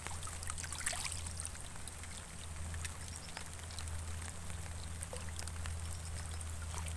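Water trickling and splashing as a hand works a mesh keep net in shallow lake water, with scattered small drip-like clicks over a steady low rumble.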